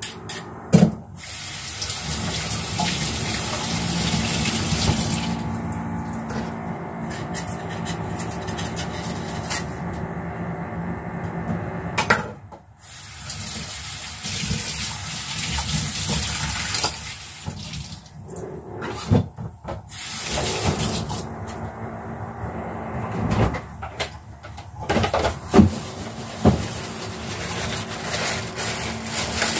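Kitchen faucet running onto a peeled lotus root as it is rinsed under the stream. The flow cuts off and restarts a few times, with a few sharp knocks.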